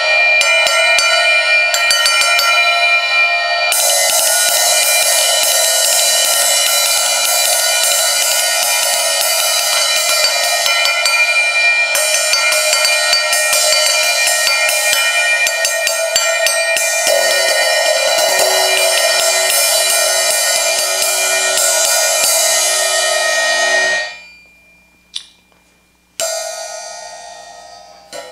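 Zildjian ZXT 14" thin crash, a B8 bronze cymbal, struck rapidly and continuously with a wood-tip drumstick on the bell, ringing with clear bell-like tones. The playing stops near the end and the cymbal rings down, with a couple of single strokes left to ring out.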